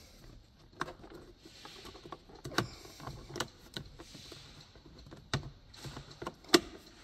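Scattered clicks and knocks of the plastic glove box and dashboard trim of a Hyundai i30 being pushed and clipped back into place by hand, about half a dozen sharp ones with faint rustling between. The loudest click comes near the end.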